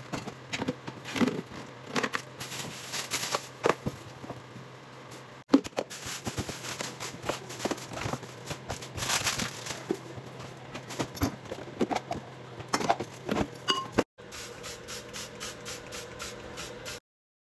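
Plastic bags rustling and crinkling, with bottles and containers knocking and scraping against the cabinet floor as they are pulled out from under a sink, in many irregular short bursts.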